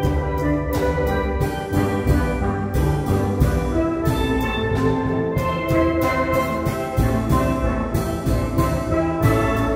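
Instrumental ensemble music: full chords held over rapidly repeated struck notes and a strong bass line.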